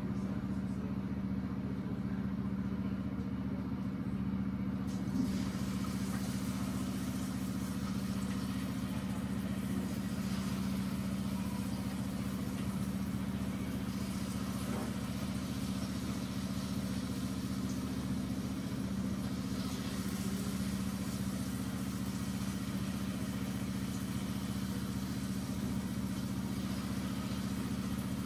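A steady low hum, with an even hiss of battered potato slices (bhajias) frying in hot oil joining about five seconds in.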